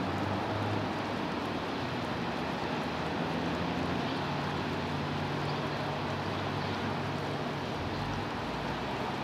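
Steady hum of a distant motor over an even outdoor hiss; its low drone shifts in pitch about four seconds in.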